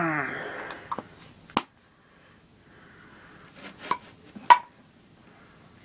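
A brief falling vocal sound, then a few sharp clicks and knocks from small objects being handled, the loudest about four and a half seconds in.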